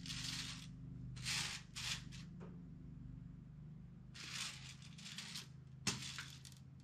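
Short bursts of rubbing and scraping as a clay sculpture on its wooden base is turned by hand on the workbench, with a single light knock a little before the end. A steady low hum runs underneath.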